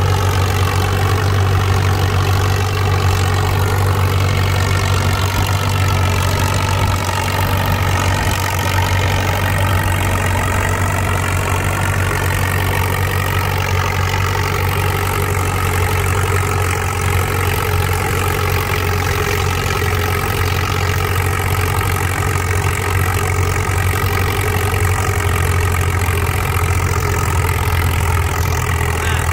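Tractor engine running steadily at low, even speed.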